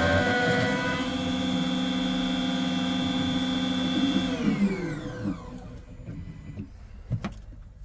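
Key-cutting machine cutting a car key blade to code: its cutter motor gives a steady, high, pitched whine, then spins down with a falling pitch after about four seconds as the first side of the blade finishes. A couple of sharp clicks follow near the end.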